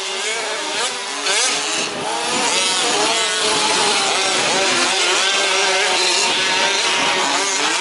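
Several 1/5-scale RC off-road trucks' small two-stroke petrol engines running at once, revving up and down in overlapping pitches as they race.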